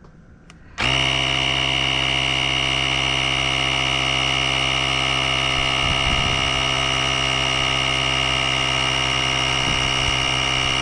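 Rechargeable portable air compressor switching on about a second in and running steadily, a buzzing motor hum with a high whine on top, as it inflates an e-bike tire.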